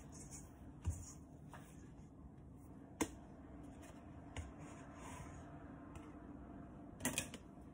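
Hands kneading and lifting soft bread dough in a stainless-steel bowl: low squishing and handling noise with a few sharp knocks and clicks against the bowl, the loudest about three seconds in and a quick pair near the end. A plastic dough scraper works the dough late on.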